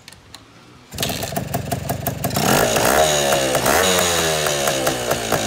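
Vintage Yamaha DT-series two-stroke single-cylinder trail bike kick-started. It catches about a second in, is revved up twice, then settles into a fast, popping idle.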